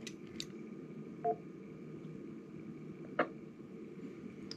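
A Kenwood TM-255A 2 m all-mode transceiver being operated: a few faint clicks and one short electronic beep about a second in, over a faint steady hum.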